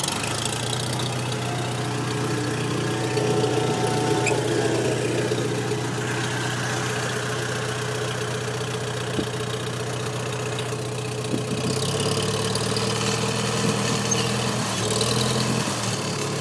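Farmall M tractor's four-cylinder engine catching on a cold start and settling into a steady idle through its vertical exhaust stack. The idle note shifts slightly about twelve seconds in.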